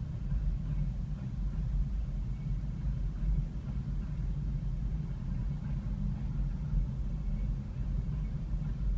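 Freight train of covered hopper cars rolling past a grade crossing, a steady low rumble heard from inside a car.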